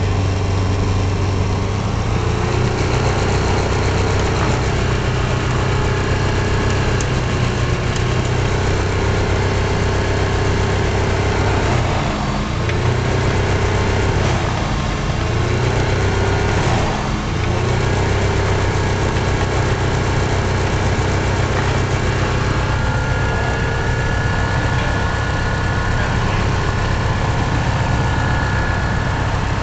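Diamond Katana DV20's Rotax four-cylinder engine and propeller running steadily, heard from inside the cockpit. The engine speed rises slightly about two seconds in, then dips briefly and recovers three times around the middle.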